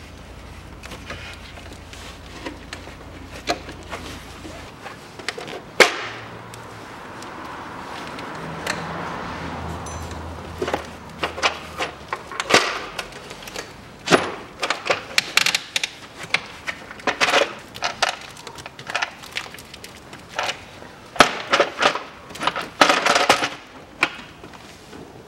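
Plastic timing belt cover being worked loose and lifted off the engine by hand: irregular knocks, clicks and rattles of hard plastic against metal, with a scraping stretch early on. The knocking comes thickest in the second half.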